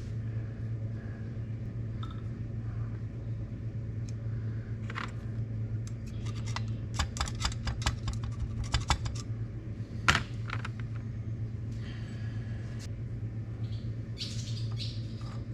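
Small metal carburetor parts and a hand tool clicking and tapping as they are fitted, with a quick run of clicks about seven to nine seconds in and one sharper click about ten seconds in. A steady low hum runs underneath.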